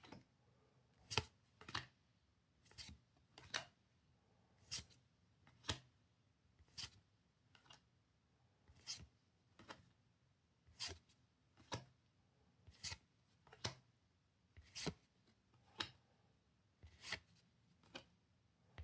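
Pokémon trading cards being flipped through one at a time, each card giving a short, faint snap or swish, at about one a second.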